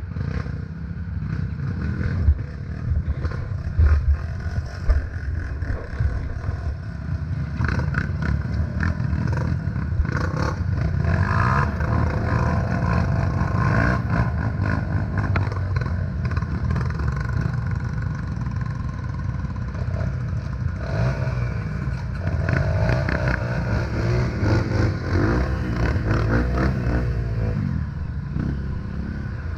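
Dirt bike engines running and revving up and down on a rough trail, with a few sharp knocks and rattles from the bike jolting over bumps in the first few seconds.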